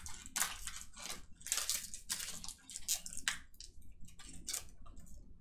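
Trading-card pack wrapper being torn open and crinkled by hand, a string of short, irregular rustles and crackles.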